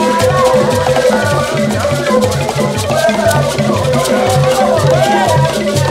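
Ganda traditional ensemble playing: ngoma hand drums keep a steady repeating beat while gourd shakers (ensaasi) are shaken in time, with a woman's voice singing over them.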